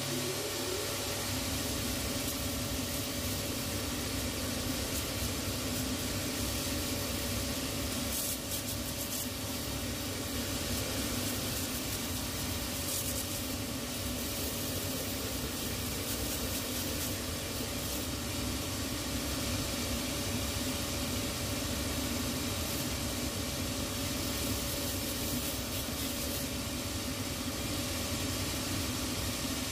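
Shoe finishing machine running steadily with a motor hum and an even hiss as its rough abrasive band sands the leather heel area of a shoe to key it for glue. There are a few brief, sharper hissing spells along the way.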